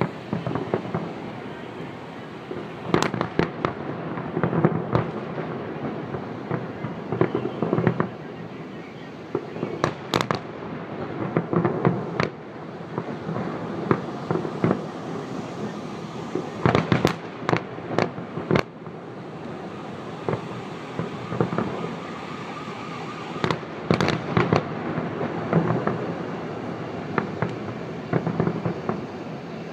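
Holiday fireworks salute: shells bursting overhead in sharp bangs, some single and some in quick clusters, every few seconds.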